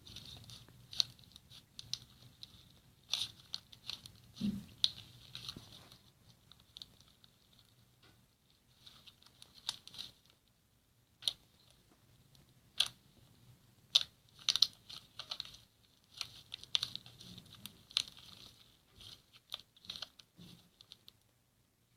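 Slime being pressed and squeezed by hand: irregular crisp crackles and clicks, some in quick clusters, with short pauses between.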